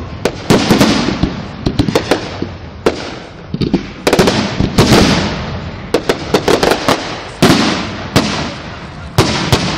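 Fireworks display: a rapid, irregular series of loud bangs and crackles from aerial shells bursting, each bang followed by a rolling echo, with the biggest blasts about four, five, seven and a half and nine seconds in.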